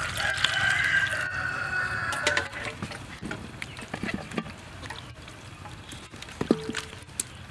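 Water poured from a plastic bowl into a steel bowl of cut cucumbers and eggplant, a pour with a pitched ring lasting about two seconds. Then hands swish and rub the vegetables in the water, with small splashes and knocks.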